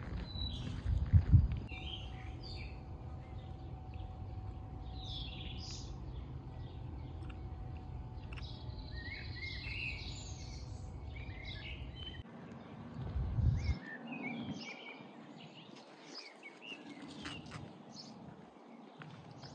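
Small birds chirping and singing in short phrases over a low rumble of outdoor noise, with two louder low bumps, one about a second in and one about two-thirds through; the rumble drops away after the second bump.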